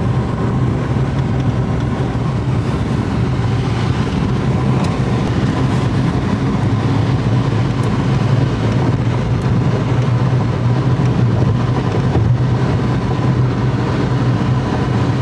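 Car cruising at highway speed, heard from inside the cabin: a steady low drone of engine and road noise.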